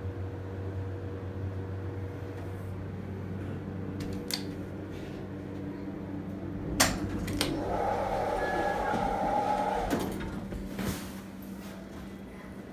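Schindler hydraulic elevator: a steady low hum in the car, then a sharp click about seven seconds in and the car doors sliding open with a whirring rush that lasts about two seconds and stops abruptly.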